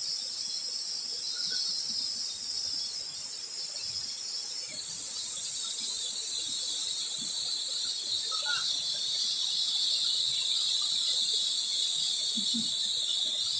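A steady, high-pitched insect chorus whose pitch band shifts upward about five seconds in.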